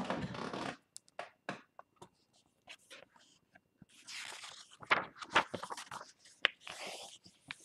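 A hardcover picture book being opened and its pages turned: paper rustling and sliding, with scattered short knocks of the cover and pages. The sharpest knocks come about five seconds in.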